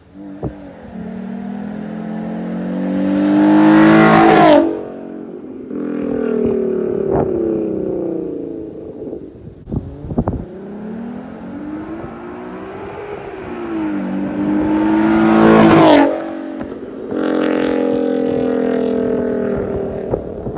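2014 Mustang's 3.7-litre V6 breathing through a Roush cold air intake, revs climbing twice to a loud intake roar and dropping off sharply about four seconds in and again near 16 seconds. Between the two pulls the engine runs lower with rising and falling revs.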